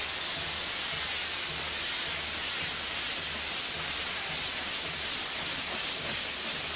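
Steady hissing of a spinning firework wheel on a castillo tower, its sputtering spark jets driving it round.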